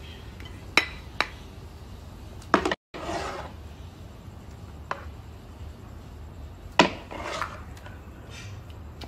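Clinks and knocks of china plates and serving utensils, about half a dozen separate sharp strikes spread over several seconds, the loudest near the end, over a low steady hum. The sound cuts out for an instant about three seconds in.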